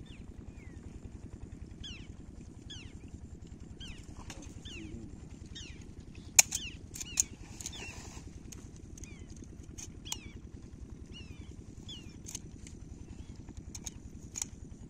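Birds calling in short chirps that slide downward, repeated every second or so, over a steady low rumble of wind on the microphone. A few sharp clicks about six and seven seconds in.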